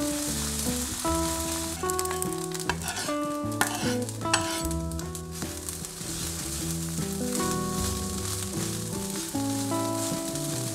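Fried rice sizzling in a hot pan as it is stir-fried, with a few sharp scrapes and clicks of the spatula a few seconds in. Background music plays over it.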